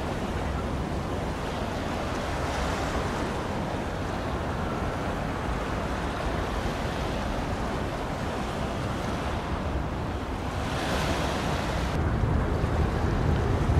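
Sea waves washing at the shore, rising in a hiss every few seconds, with wind buffeting the microphone in a low rumble that grows stronger near the end.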